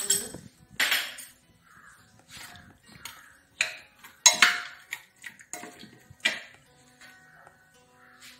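Marinated chicken pieces being mixed by hand in a metal pressure cooker: about half a dozen sharp knocks and scrapes against the pot. Crows caw faintly in the background.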